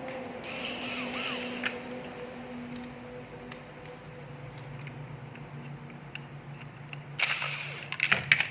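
Clicks, scraping and rattling of parts being handled while a Hakko 936 soldering station is taken apart, with a cluster of loud sharp clicks near the end, over a steady low hum.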